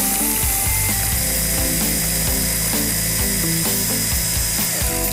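Electric mini chopper running steadily, its blade grinding biscuits into crumbs; it cuts off at the very end.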